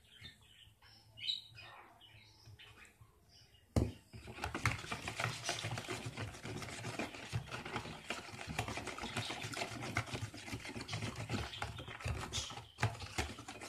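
A plastic whisk beating egg batter in a plastic bowl: rapid, continuous clicking and scraping that begins with a sharp knock about four seconds in. Before that there are only a few faint, short sounds.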